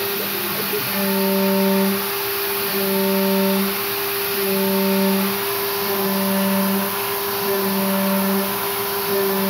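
CNC milling machine cutting an aluminium bar with an end mill under mist coolant: a steady hiss from the coolant spray and a steady spindle tone. Over these, a lower motor note ramps up, holds for about a second and ramps down, repeating every second and a half or so as the machine makes pass after pass.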